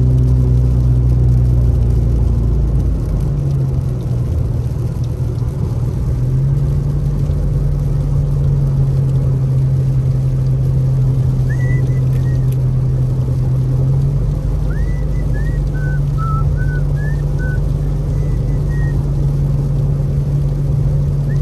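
Car cabin noise while driving: a steady low drone of engine and tyres on the road, the hum shifting a couple of times. A few faint short chirps sound high above it near the middle and toward the end.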